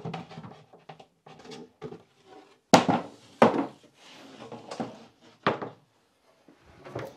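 Wooden cabin floorboards being lifted out and handled: a few sharp wooden knocks and clatters, the two loudest about three seconds in and another near five and a half seconds, with softer scraping and handling noise between.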